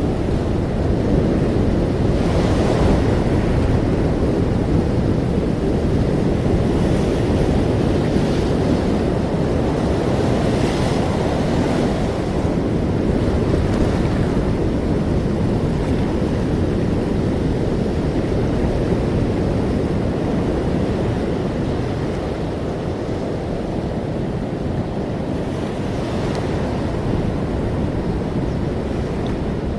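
Ocean waves on a shore: a continuous low rush of surf, with the hiss of a breaking wave swelling up every few seconds.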